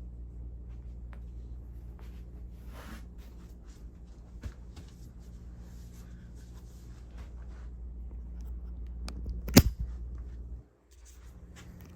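Hampton Bay Tripoli ceiling fan motor running on high with a steady low hum and faint ticking. About nine and a half seconds in comes a sharp click, likely the pull-chain speed switch, and a second later the hum cuts out briefly and comes back weaker.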